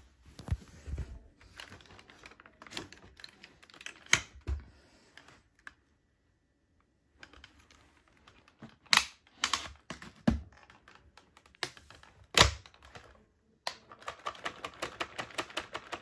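Plastic clicks and knocks from a Dyson V7 cordless stick vacuum's clear dust bin being opened and tapped to empty out dust and hair, with the motor off. A few sharper knocks come in the middle, and near the end a quick run of light ticks, about seven or eight a second.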